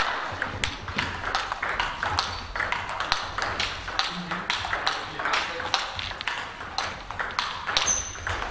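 Table tennis balls clicking off bats and tables, many irregular hits that overlap as rallies run on more than one table. A short high squeak comes near the end.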